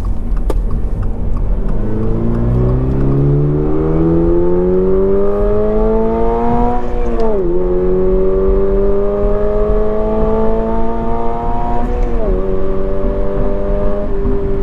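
The 2022 Toyota GR86's 2.4-litre boxer engine, heard in the cabin with its note augmented by the Active Sound Control speaker, revving up under acceleration. The pitch climbs for about five seconds and drops sharply at an upshift, then climbs again and drops at a second upshift. After that it holds and slowly falls.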